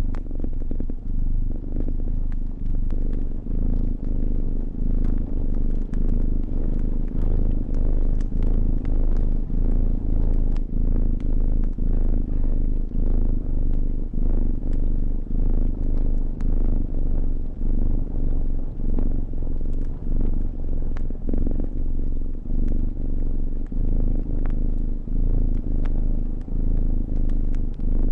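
A domestic cat purring steadily, pulsing a little more than once a second. Faint scattered crackles of a wood fire sound behind it.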